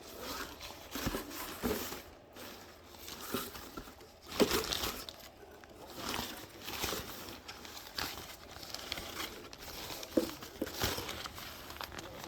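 Rustling and crinkling of a small nylon tarp shelter being handled, in irregular bursts, the loudest about four and a half seconds in.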